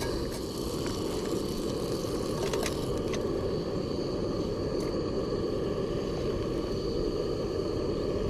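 Trangia spirit stove burning under a pan of frying mushrooms: a steady rushing noise, with a few light clicks.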